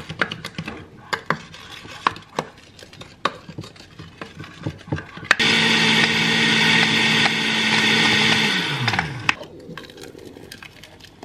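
A utensil knocking and scraping inside a blender jar, a string of sharp clicks, as the stuck shake is scraped off the sides. About five seconds in, a countertop blender switches on abruptly with a protein shake in it, runs for about three seconds, then winds down with a falling hum.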